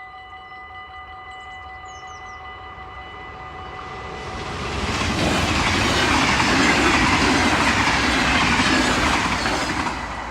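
Train passing over a level crossing at speed: the rush of wheels and cars swells about four seconds in, stays loud for about five seconds and drops away near the end. Under it the crossing's warning bells ring in steady tones.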